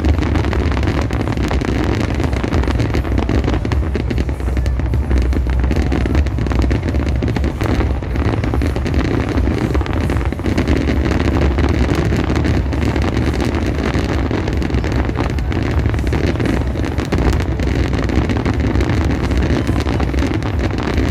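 Aerial fireworks bursting one after another: a steady low rumble with many sharp crackles throughout.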